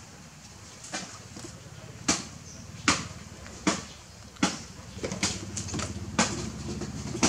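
Baby macaque sucking milk from a feeding bottle, making sharp smacking clicks at the nipple roughly once a second.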